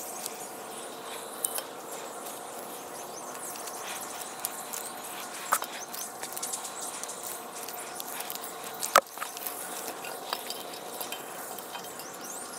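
Tree-climbing gear being handled: rope, straps and a climbing stick rustling and knocking against the bark, with scattered small clicks and a sharp click about nine seconds in, over a faint steady hum.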